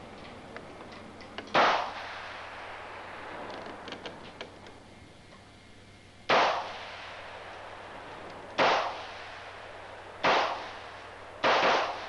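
AR-15 rifle firing five single shots at uneven intervals, each a sharp crack with a short echoing tail.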